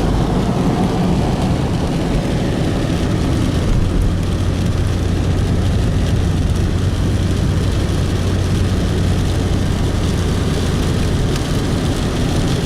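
Car driving at steady speed: a continuous drone of engine and road noise with a steady low hum.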